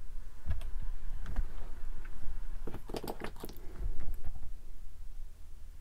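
Small plastic clicks and taps from fingers handling a plastic scale-model engine and fitting a part to it, scattered through, busiest around the middle.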